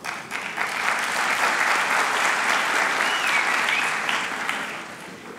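Audience applauding, starting at once and fading out near the end.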